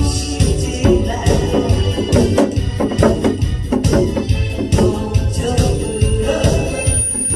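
Upbeat live music with a steady drum beat and sustained keyboard chords, no voice prominent.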